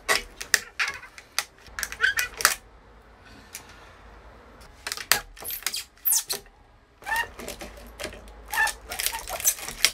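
Pliers clicking and cracking on a power-supply circuit board as glued-down electrolytic capacitors are wrenched and broken off it: a run of sharp clicks and snaps in several clusters, with short pauses between them.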